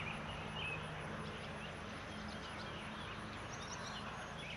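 Quiet outdoor ambience: scattered short bird chirps over a steady low hum.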